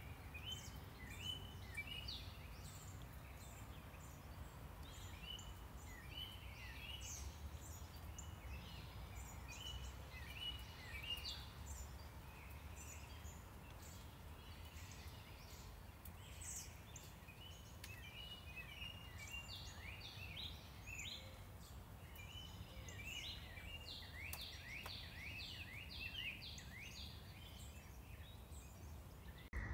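Songbirds chirping and calling, with a quick run of repeated downward-sweeping notes near the end, over a steady low rumble of distant traffic.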